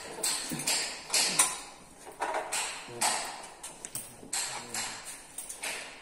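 An irregular series of sharp knocks and taps, two or three a second, each with a short ringing tail.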